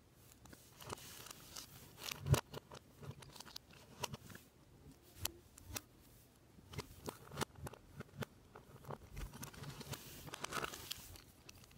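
Lego Technic plastic parts clicking and snapping together under the fingers as a flexible ribbed hose and connectors are fitted, with irregular sharp clicks and light handling rustle. The loudest snap comes a little over two seconds in, and a longer stretch of rustling comes near the end as the model is moved.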